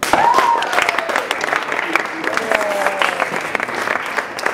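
An audience applauding, starting suddenly and holding steady, with a voice or two heard over the clapping.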